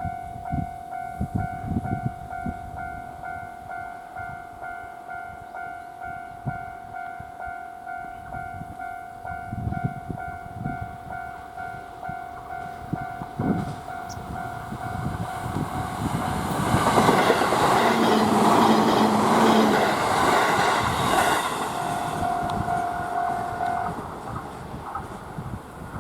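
Level-crossing warning bell ringing in a steady repeating tone while a JR East E531 series electric train passes over the crossing, a rush of wheel and running noise that builds about two-thirds of the way through and fades again, with the bell heard again after it.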